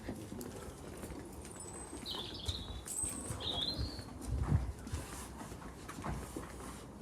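Footsteps on a path with a bird chirping twice, about two and three and a half seconds in, and a low thump about four and a half seconds in.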